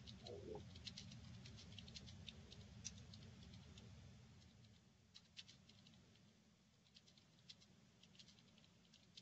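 Faint computer keyboard typing: scattered soft key clicks over a low hum that drops away about four seconds in.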